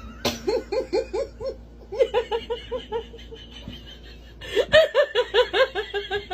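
A person laughing in two fits of rapid, high-pitched "ha-ha" pulses, about five a second, with a short pause between them.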